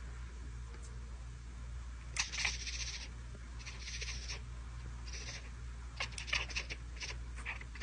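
Long-haired domestic cat making a series of short, breathy hiss-like sounds through its wide-open mouth, with a few faint clicks between them. A steady low hum runs underneath.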